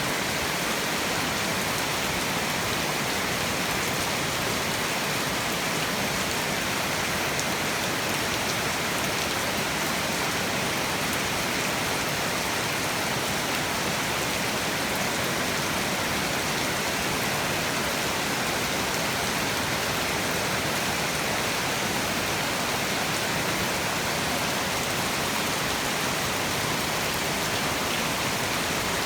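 Heavy tropical rain falling steadily, a dense even hiss of drops hitting surfaces.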